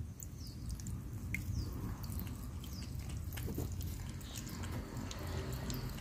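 A cat lapping water from a small pond, a series of small wet clicks, over a steady low rumble.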